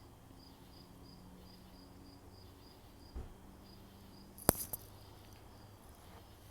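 Insects chirping steadily outdoors, about three high pulses a second. About three seconds in there is a low thump, and a second and a half later a sharp click, the loudest sound.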